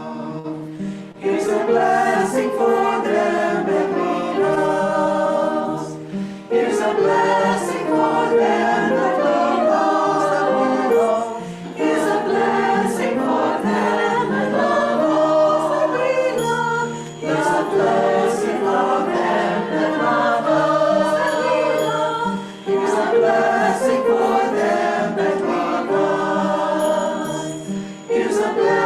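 A choir singing a song, in phrases of about five seconds with short breaks between them.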